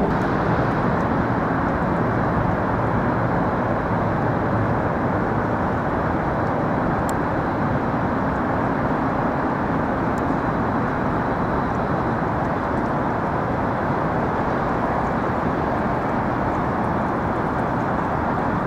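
Steady outdoor city ambience: a continuous, even wash of distant traffic noise.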